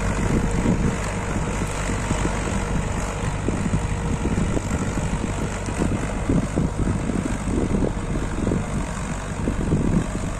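Tractor diesel engine running steadily under load, pulling a five-disc plough through the soil, with irregular low thumps over the drone.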